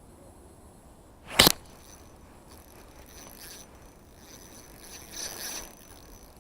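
An ultralight spinning rod whipped through the air in a cast: one sharp swish about a second and a half in. A softer hissing rustle follows near the end.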